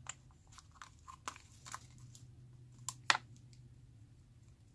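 Light, irregular clicks and taps of small plastic items being handled, with one sharper click about three seconds in, likely from nail-gel tubes and their caps, over a faint steady low hum.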